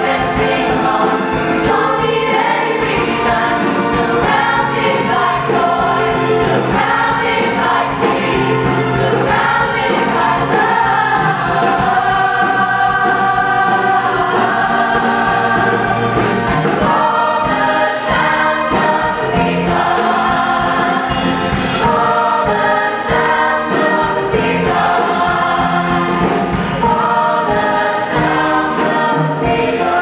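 Mixed male and female vocal ensemble singing a Christmas medley in harmony, with a light, steady ticking beat underneath.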